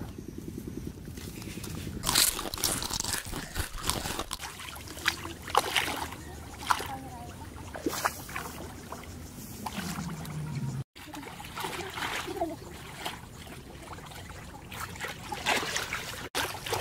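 Muddy paddy water splashing and sloshing in irregular bursts as someone wades and moves through it.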